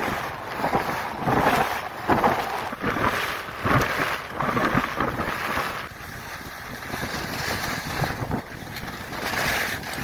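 Wind rushing over the microphone at skiing speed, mixed with the hiss and scrape of skis carving on hard-packed snow, swelling and fading with each turn. It eases off about six seconds in.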